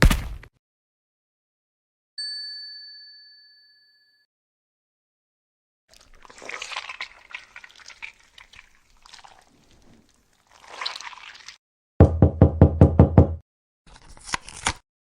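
A string of separate sound effects: a short hit, a clear ringing tone that fades over about two seconds, several seconds of irregular noisy rustling, then a fast run of about ten loud knocks.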